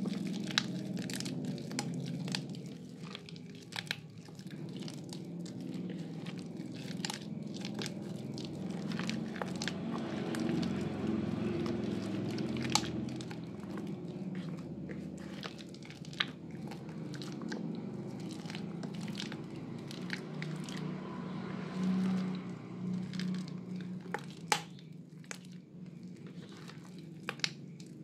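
Soaked, crumbled Lervia milk bar soap squeezed and kneaded by hand into thick lather: wet squishing and crunching with many sharp little crackles.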